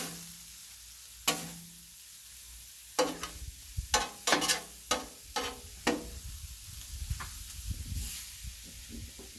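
Metal spatula scraping and clinking on the steel top of a Blackstone griddle while stirring a frying mix of shrimp, scallops, onion and mushroom, with a steady sizzle underneath as the mix gives up its water. The strokes come in a quick run through the first six seconds or so, then it is mostly sizzling.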